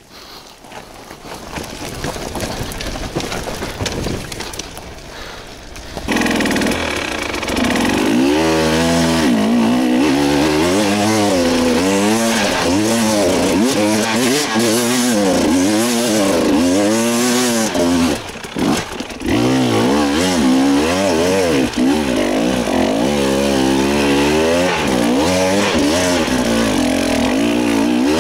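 Enduro dirt bike engine, low for the first six seconds, then revving hard in repeated rising and falling surges as the bike climbs a steep rocky ramp under load. The throttle drops briefly about eighteen seconds in before the surging resumes.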